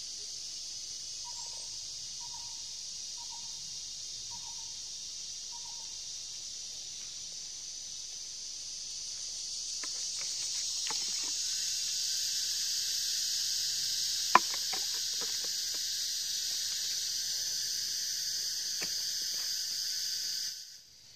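Steady high-pitched insect chorus droning, swelling louder about halfway through as a second, lower drone joins, then cutting off just before the end. Five short soft chirps about a second apart come near the start, with scattered light knocks of hand work in the soil and one sharp knock in the middle.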